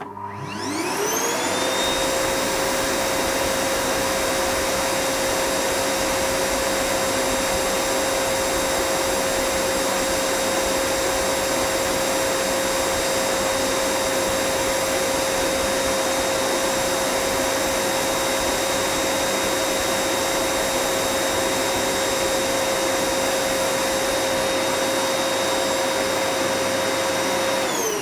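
Air blower switched on and spinning up with a rising whine over about a second. It then runs steadily with a high motor whine and rushing air, and is switched off at the very end, the whine starting to fall.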